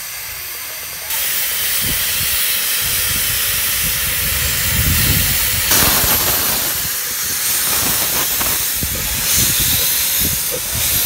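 Loud, steady hiss of steam from a 15-inch-gauge steam locomotive, starting suddenly about a second in and growing louder about halfway through. Irregular low rumbles of wind on the microphone run underneath.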